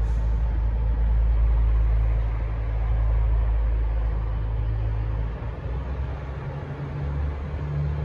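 V/Line VLocity diesel multiple unit pulling away from the platform: a steady low diesel engine rumble, with the engine note changing about five seconds in as it gathers speed.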